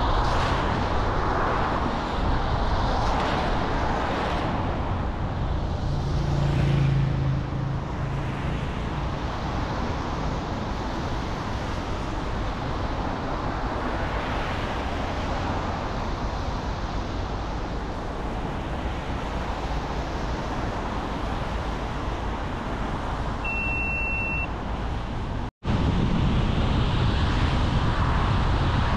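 A car driving at speed: steady road and tyre noise, with swells as other traffic passes. About 25 seconds in, the sound cuts out for an instant and comes straight back.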